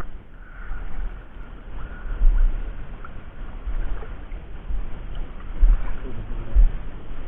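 Shallow sea water sloshing and lapping right at the microphone, in irregular low thumps.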